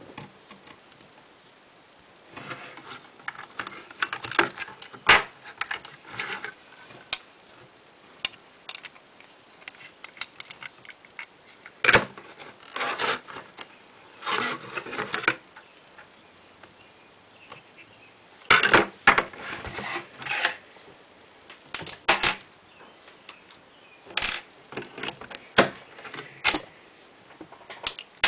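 LEGO bricks being handled: irregular plastic clicks and short clattering bursts as pieces are picked up and pressed together.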